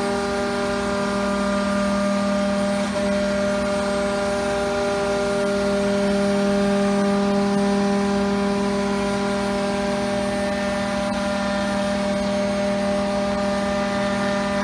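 Multicam 5000 Series CNC router running with a steady, even hum-whine that holds one pitch without changing.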